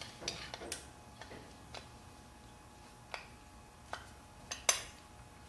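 Light metal clicks and taps of hand tools on a carburetor while a stuck main jet is worked loose. They come scattered and uneven, the sharpest near the end.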